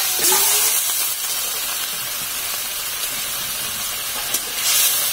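Spice paste frying in hot mustard oil in an aluminium kadai, with a steady sizzle. It hisses loudly about half a second in and again near the end as water is splashed into the hot oil.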